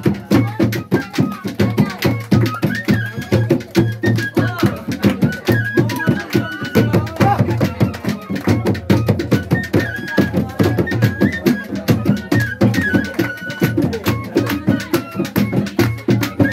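Folk music with fast, steady drumming under a high wind-instrument melody that moves in small steps.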